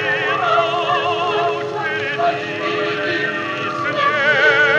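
Playback of an old Soviet gramophone record: a variety orchestra with choir plays a passage of sustained music, led by high melody lines in wide vibrato. The sound is cut off above about 8 kHz, as is typical of an old disc transfer.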